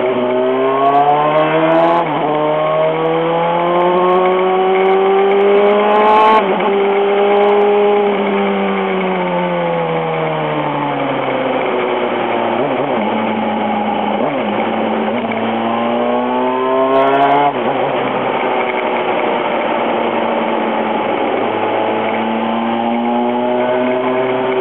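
Honda CBR954RR's inline-four engine under way, heard from the rider's seat. The engine pitch climbs with breaks at gear changes about 2 and 6 seconds in, then sinks as the throttle eases off. It rises again before settling into a steady cruise.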